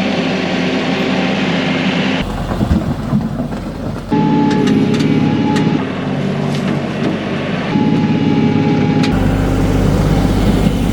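Kioti NS6010 compact tractor's diesel engine running steadily, the sound changing abruptly about two, four and nine seconds in, with a few sharp knocks in the middle stretch.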